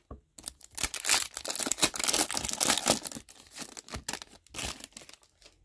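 A hockey card pack's wrapper being torn open and crinkled: dense crackling for about three seconds, then a few shorter rustles near the end.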